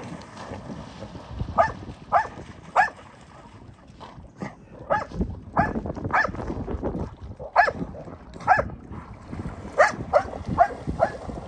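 Dog barking repeatedly: about a dozen short, sharp barks, some coming in quick pairs or runs.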